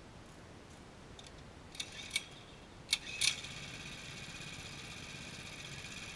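Coleman CT200U mini bike's small single-cylinder engine being pull-started: several sharp rattling pulls, then it catches a little over three seconds in and keeps running at a low, steady level. The engine is not running well and will not idle.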